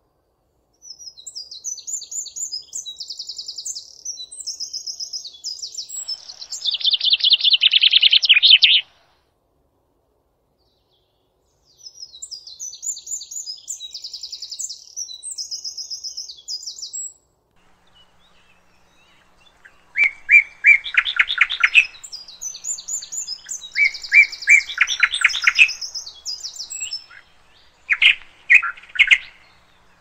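At least two songbirds singing. Phrases of quick, high chirps and trills a few seconds long come with short pauses between them. The loudest parts are fast, lower-pitched trills, one about a third of the way in and several in the last third.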